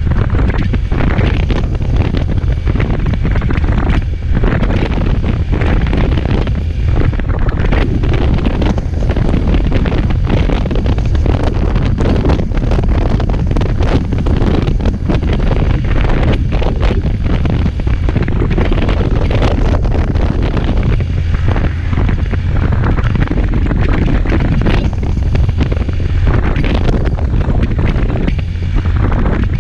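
Loud, steady wind buffeting the microphone of a moving motorcycle, a dense rumbling rush that fluctuates constantly.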